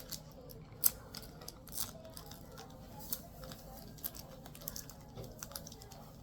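Small clicks and light rustles of a Pokémon trading-card pack and its cards being handled, with a sharper click about a second in.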